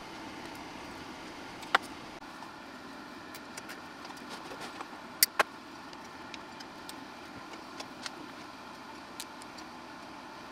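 Scattered small clicks and taps from handling the metal amplifier plate and screws of a studio monitor being reassembled, the loudest a sharp pair about five seconds in, over a steady low hiss.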